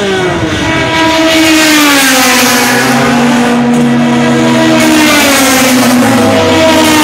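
Turismo Nacional Clase 2 touring race car engines running at speed on the straight. The engine note falls over the first couple of seconds, holds steady, then begins to rise again near the end.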